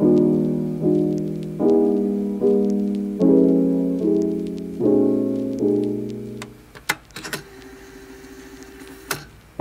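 Soft piano music with a chord about every bar, dying away about two-thirds of the way through. After it come a few light clinks and a quiet hiss as milk is poured from a carton over ice in a glass.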